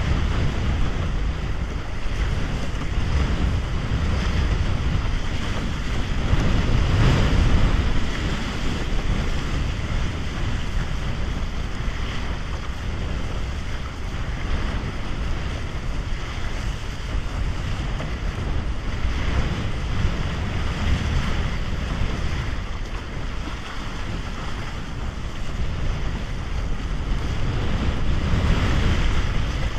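Wind buffeting the camera microphone, with water rushing and splashing against a Bic Bamba raceboard as it sails across choppy water under a windsurf sail. The noise swells in louder gusts about seven seconds in and again near the end.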